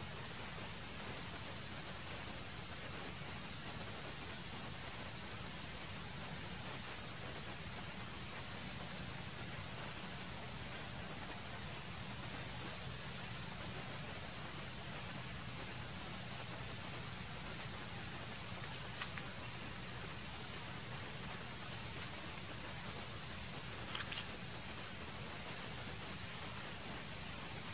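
Steady high-pitched drone of insects calling without a break, with a couple of brief clicks in the second half.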